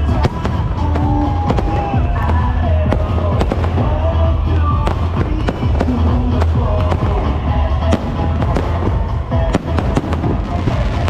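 Fireworks exploring the sky in many sharp bangs and crackles throughout, over loud music from the show's sound system with a heavy, steady bass.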